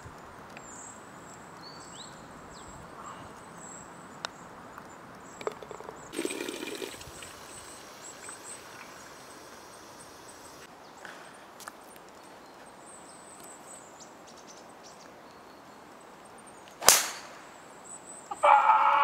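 A driver striking a golf ball off the tee: one sharp, loud crack near the end, over quiet outdoor background. Earlier, water runs from an outdoor tap into a plastic bottle for a few seconds.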